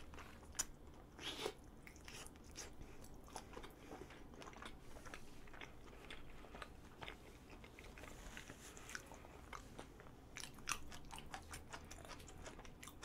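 Close-miked chewing of a soft strawberry chapssal-tteok, a glutinous rice cake filled with fresh strawberry and red bean paste. The chewing is faint, with many small scattered mouth clicks, and a bite into the cake about a second in.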